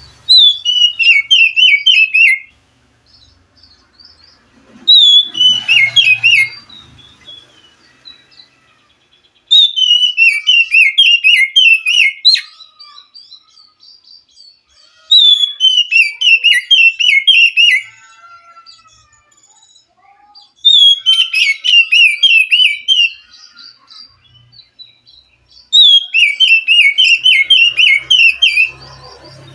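Oriental magpie-robin (kacer) singing: six loud phrases about five seconds apart, each a quick run of whistled notes stepping down in pitch and lasting about two seconds.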